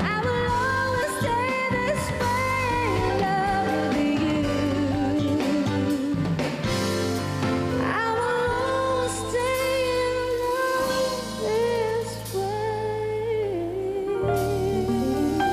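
A female vocalist singing a slow love ballad over band accompaniment, holding long notes with vibrato.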